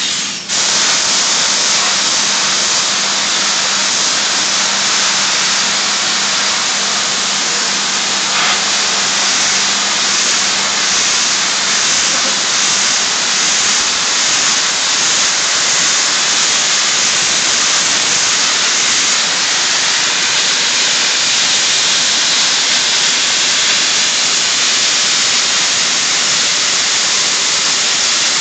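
Soda blaster nozzle spraying bicarbonate media at low pressure, a loud steady hiss as it strips scale from a stainless steel heat exchanger plate. The blast cuts out for a moment about half a second in, then runs on unbroken.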